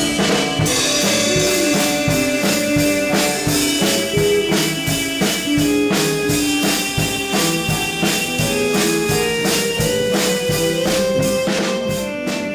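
Rock band playing an improvised instrumental: a drum kit keeping a steady beat under guitar and bass notes, easing off slightly near the end.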